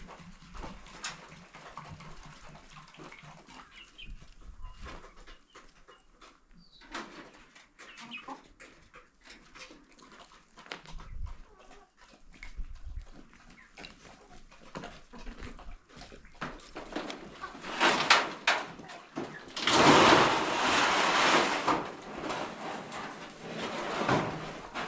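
Chickens clucking among scattered light knocks, then, about two-thirds of the way in, a few seconds of loud scraping and rattling as corrugated iron roofing sheets are handled and slid into place.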